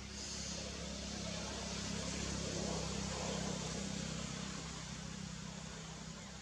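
A motor vehicle passing: a steady engine rumble that grows louder to about the middle, then fades away.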